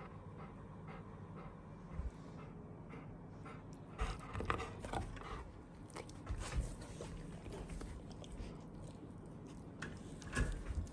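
Golden retriever panting in quick, even breaths, with several soft knocks and thumps scattered among them.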